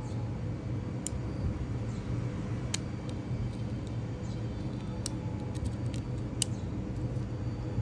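A handful of sharp metallic clicks as Caperlan fishing pliers work a steel split ring through the crimped edge of a crown bottle cap, over a steady low background rumble.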